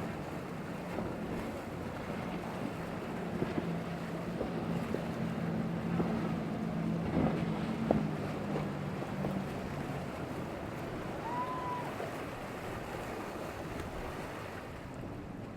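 A motorboat's outboard engine drones steadily and fades away about ten seconds in, over wind buffeting the microphone and the wash of waves.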